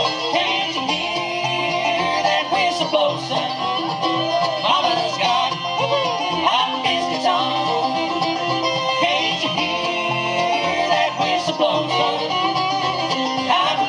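Live acoustic bluegrass band playing an instrumental break, with banjo prominent over guitar and a steady bass pulse, and a lead instrument bending and sliding its melody notes.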